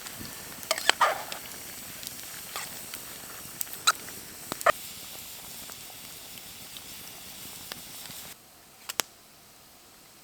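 Campfire crackling: a steady hiss with scattered sharp pops. About eight seconds in the hiss drops away suddenly, leaving a couple of faint clicks.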